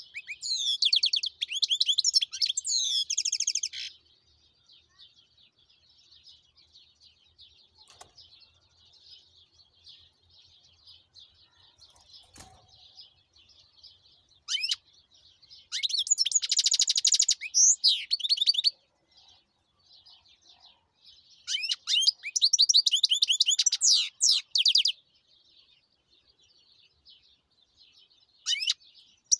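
European goldfinch singing in bursts of rapid, high twittering a few seconds long, three main outbursts with softer twittering in between.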